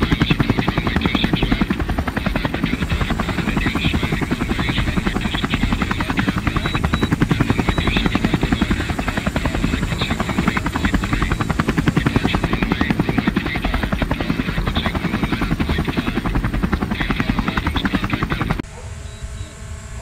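DJI Mavic Air 2 drone's propellers buzzing loudly and steadily overhead as it descends on an automatic Return-to-Home landing. The sound drops sharply about a second before the end.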